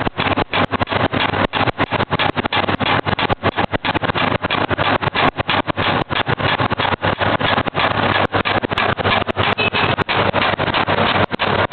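Electric meatball-forming machine running, a loud continuous mechanical noise with a steady low hum, broken by many very short drops in level.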